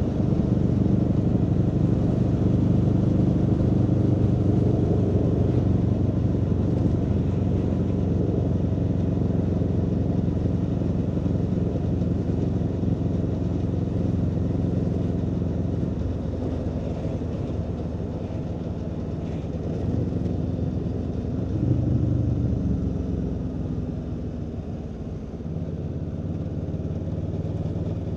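Aprilia Tuono V4 motorcycle's V4 engine running on the move, its note sinking slowly as the bike rolls along, with a short rise in revs a little after twenty seconds before it settles again.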